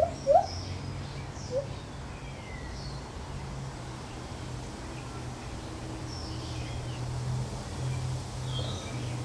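Lar gibbon giving two short rising hoots right at the start and a fainter one about a second and a half in. Faint bird chirps and a low steady hum run underneath.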